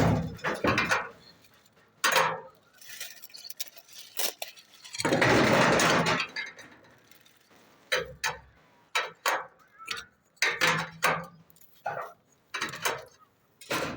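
Irregular sharp clinks and knocks of hard parts being handled during installation work. About five seconds in, a steady rushing noise lasts about a second and a half.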